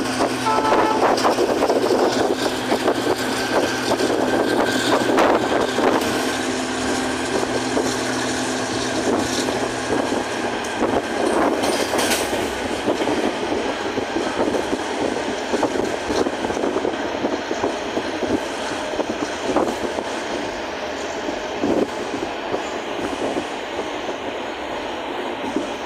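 Rumble and rattle of a moving passenger train heard from inside the carriage: wheels running on the rails with a steady stream of clicks and clatter. A low steady hum stops about ten seconds in.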